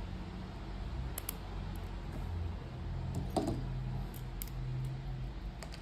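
A few faint, sharp metallic clicks as steel tweezers touch the watch case and crown and the link bracelet shifts in the hand, with a slightly fuller click a little past halfway. A low steady hum runs underneath.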